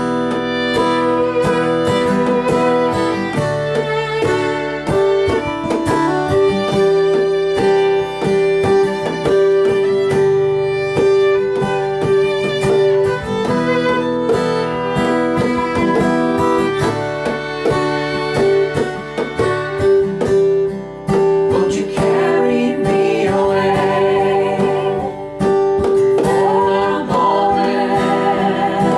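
Folk-rock instrumental passage: a fiddle holding long bowed notes over a strummed acoustic guitar. In the last several seconds the notes waver with vibrato.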